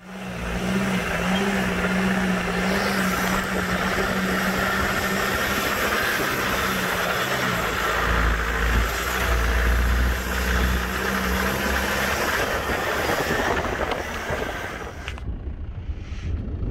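M1163 Growler utility vehicle's engine running as it drives off-road over loose dirt, its pitch shifting slightly with the throttle, with a heavy low rumble about halfway through. About three-quarters of the way in the sound drops suddenly to a fainter, more distant engine.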